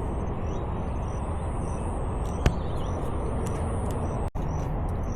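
Steady outdoor background rumble and hiss, with faint short high chirps repeating a few times a second and a single sharp click about halfway through.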